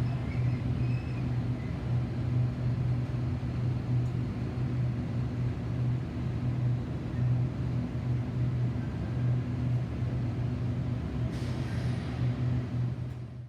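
Diesel engine of an XPT power car droning steadily at a constant low pitch, with no rise or fall. The sound cuts off abruptly at the end.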